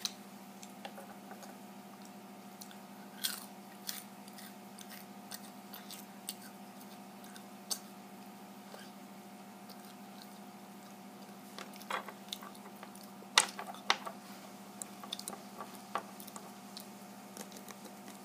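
A person chewing and biting food close to the microphone, with scattered crisp crunches that come more often and louder in the last third, over a steady low hum.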